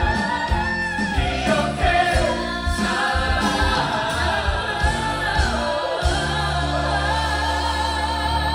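Musical-theatre cast singing together with the band, a live stage performance recorded from the audience. About six seconds in they settle onto a long held chord over a steady bass note.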